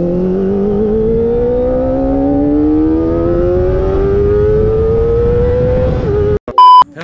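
Kawasaki Ninja ZX-25R four-cylinder engine through an Akrapovic exhaust, pulling hard with its pitch rising steadily for about six seconds without a gear change, then dipping briefly before cutting off. A short, very loud electronic beep follows near the end.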